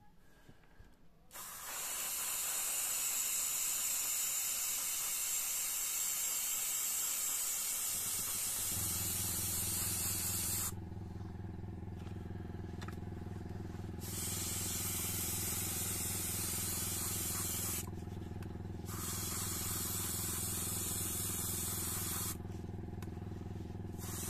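Airbrush spraying varnish in long hissing passes, with pauses about 11, 18 and 22 seconds in. About 9 seconds in, an air compressor starts and runs with a steady hum beneath the spray.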